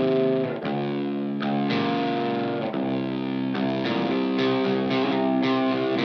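Background music led by a distorted electric guitar, with held chords that change every second or so.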